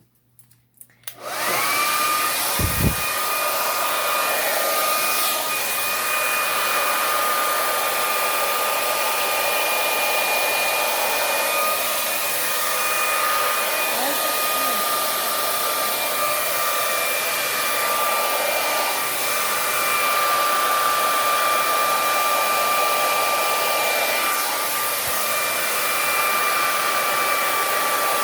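Handleless hair dryer switched on about a second in, its motor whine rising quickly to a steady high pitch, then running steadily with a loud rush of air. A brief low bump comes just after it starts.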